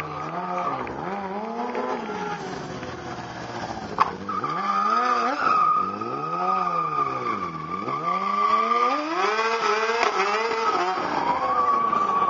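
Stunt motorcycle engine revving up and down in long sweeps under a steady high tire squeal as the rider spins and wheelies on pavement. A single sharp crack sounds about four seconds in.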